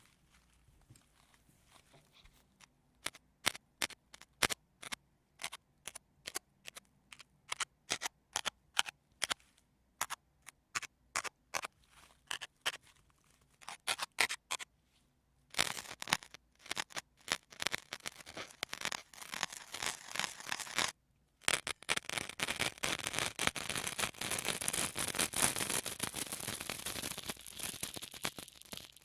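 Sponge being squeezed and scratched, first in separate short crackly strokes two or three a second, then from about halfway in continuous rapid crinkly rubbing, broken once by a brief pause.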